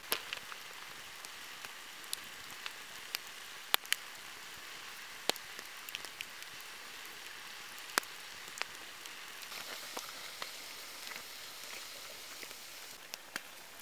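Wood campfire crackling: a steady soft hiss with scattered sharp pops and snaps from the burning logs.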